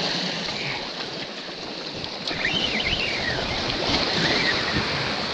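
Sea surf washing and breaking over a rocky shoreline, swelling louder about two seconds in as a wave surges in. A few brief higher-pitched sounds come through about halfway through.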